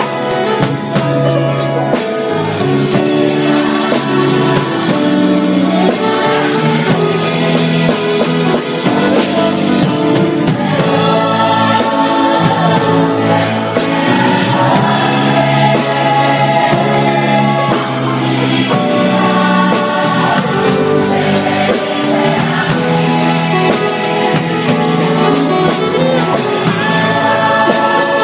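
Live band and singers performing a song, amplified through a PA system, with a drum kit and cymbals, loud and steady throughout.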